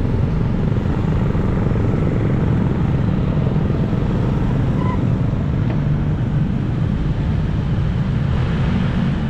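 Steady street traffic of cars and motorcycles with a continuous low rumble, picked up on an action camera riding along with it.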